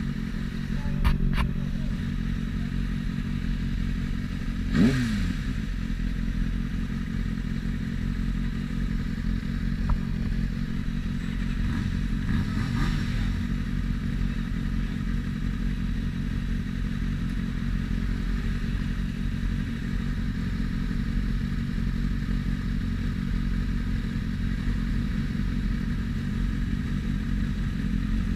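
Sport motorcycle engine idling steadily, with a short knock and a brief falling note about five seconds in.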